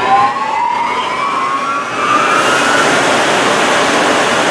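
A 200-horsepower, 1800 RPM electric motor spinning up on a soft start through a Flux Drive coupling to an induced-draft fan. A rising whine climbs steadily, and about two seconds in a steady rush of air builds as the fan comes up to speed.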